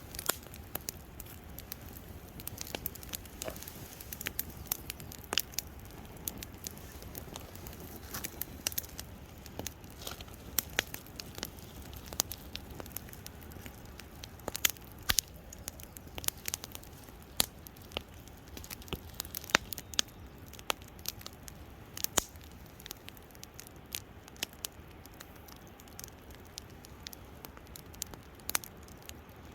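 Wood campfire crackling, with irregular sharp pops and snaps several times a second.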